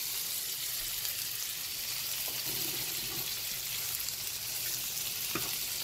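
Sausage browning in a frying pan, a steady sizzle of fat, with a single light click near the end.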